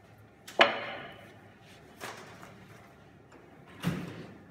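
Three knocks of a wooden rolling pin and puff pastry dough on a granite worktop as the pin is set down and the dough is handled. The first, about half a second in, is the loudest; the others come near two and four seconds.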